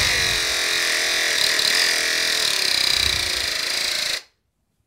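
Small electric motor spinning a homemade sheet-metal fan propeller inside a plastic pipe, running steadily with a whirring hum, then cut off suddenly about four seconds in. It is the motor test of a homemade hair dryer, and the motor is turning freely.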